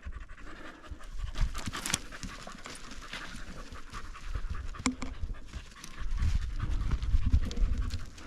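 Dog panting rapidly, with a low rumble about six seconds in.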